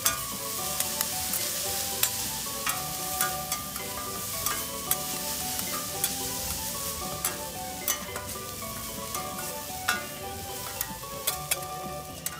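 Yakisoba noodles and cabbage sizzling on a hot flat steel griddle, with a steady hiss. Frequent sharp clacks and scrapes come from metal spatulas tossing the noodles against the plate.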